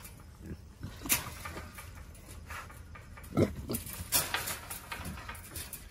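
Trapped wild hogs grunting and moving about inside a wire trap, with sharp knocks about a second in and about four seconds in, and the loudest low grunt about three and a half seconds in.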